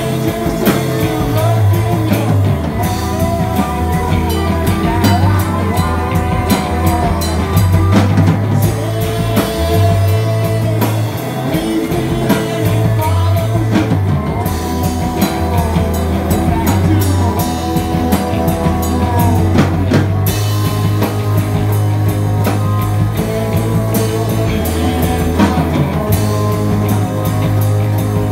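Live rock band playing: banjo and electric guitars over a steady bass line and drum kit.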